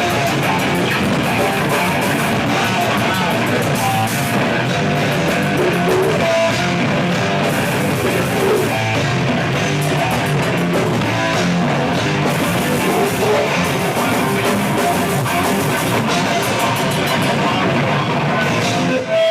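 Live heavy rock band playing loud distorted electric guitar over a drum kit, the sound dense and unbroken.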